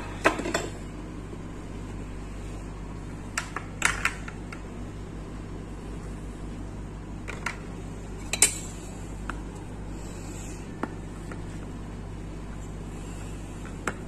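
Plastic microwave rice steamer being handled and its lid taken off: scattered clicks and knocks of hard plastic, loudest near the start and about eight seconds in, over a steady low hum.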